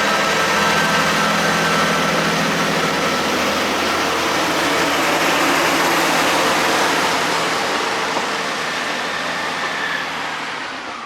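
Diesel passenger train on the Cambrian line pulling away from a request-stop platform, its engine note and running noise steady, then fading away over the last couple of seconds.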